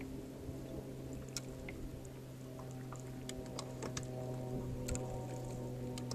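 Background music of held, sustained chords over a steady low note, shifting chord twice, with scattered sharp clicks.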